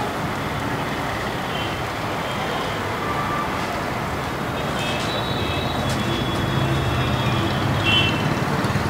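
Steady background rumble and hiss, growing a little louder in the second half, with a few faint high tones.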